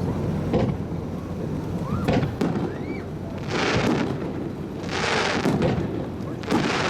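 Fireworks display: aerial shells booming in a steady low rumble, with three bursts of hissing crackle from about three and a half seconds in.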